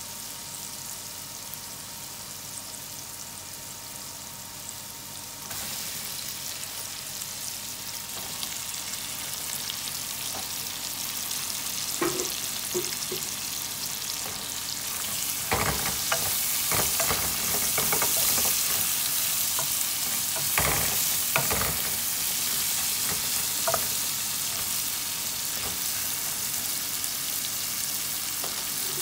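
Sliced onions, garlic and ginger sizzling in hot oil in a metal pan, the sizzle growing louder about five seconds in and again around halfway. A wooden spoon stirs them, knocking and scraping against the pan several times in the second half.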